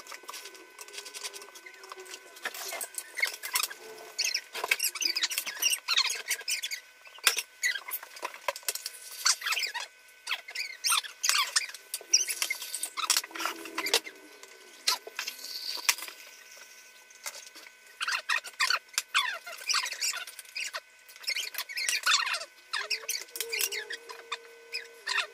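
Children slurping instant cup noodles, in quick squeaky sucking bursts, with chopsticks and spoons clicking against the bowls and cups.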